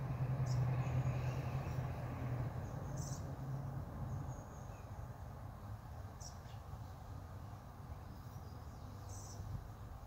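Honey bees flying at a hive entrance, a low hum that fades after about four seconds, with a few short high bird chirps now and then.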